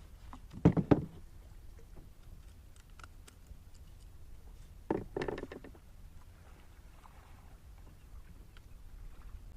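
Knocks and clatter of gear being handled on a kayak: two sharp knocks just under a second in and another short clatter about five seconds in, with faint background between.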